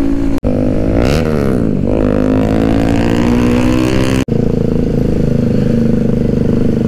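Motorcycle engine running on the move, its pitch swinging up and down around a second in, then settling to a steady drone. The sound cuts out for an instant twice.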